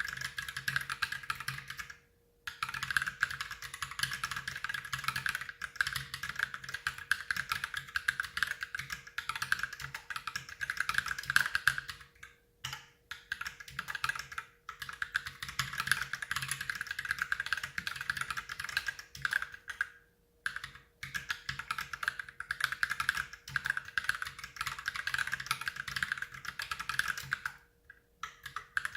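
Fast, continuous typing on an Ultimate Hacking Keyboard fitted with lubed Holy Panda tactile switches: a dense stream of keystrokes, broken by a few short pauses.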